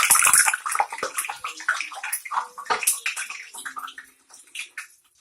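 Hot cooking oil spitting where a little water has got into it: a loud hissing sizzle that drops away about half a second in, then irregular crackling pops that thin out.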